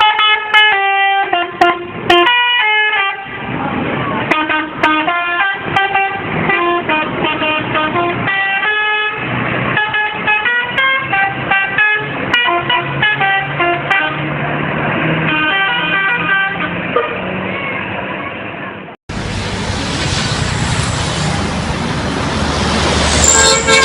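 Bus 'telolet' multi-tone horn playing a quick melody of short, changing notes. About 19 seconds in, the sound cuts to another recording: traffic noise, with a further horn tune near the end.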